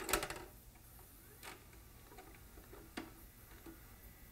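A few faint taps, the strongest near the start, then single ones about every second and a half.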